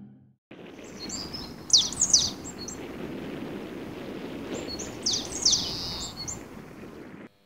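Outdoor ambience: a steady wash of background noise with small birds chirping, two quick runs of high calls about two seconds in and again about five seconds in. It cuts off abruptly near the end.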